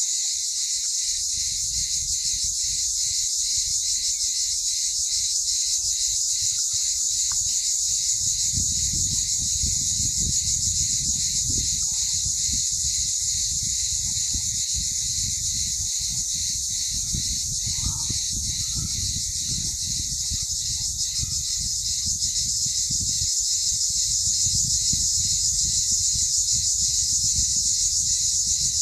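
Insects trilling without a break, a high, fast-pulsing buzz that never pauses, with wind rumbling on the microphone.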